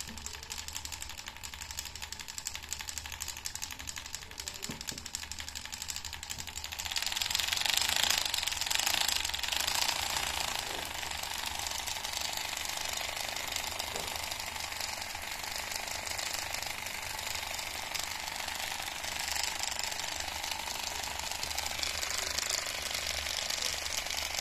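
Small DC motor driving a homemade mini V-twin model engine through a rubber belt: a fast, steady mechanical rattle of the motor and the turning crank and pistons. It gets louder about seven seconds in.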